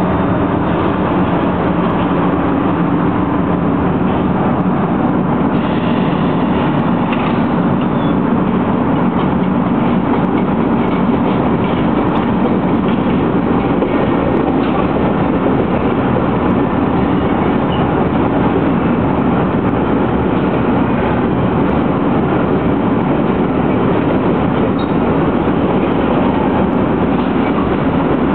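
London Underground A60 Stock Metropolitan Line trains moving through the terminus platforms: one arrives alongside while another departs, giving an even, continuous train running noise of wheels on track.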